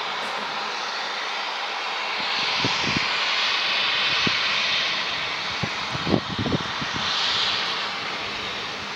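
Safety valve of NSWGR steam locomotive 5917 blowing off as a steady hiss while the engine stands: boiler pressure at its limit, with surplus steam dumped to the air. The hiss swells twice, and a few short low thumps come around the middle.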